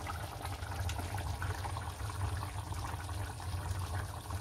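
Chicken curry gravy bubbling in an aluminium pan on a low gas flame: many small irregular pops over a steady low hum.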